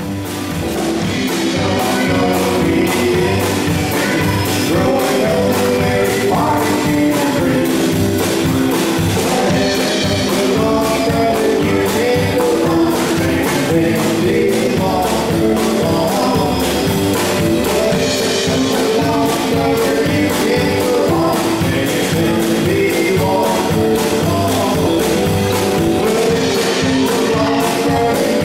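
Live band playing: electric guitar with singing voices over a steady beat. The music fades in over the first second, then carries on at an even level.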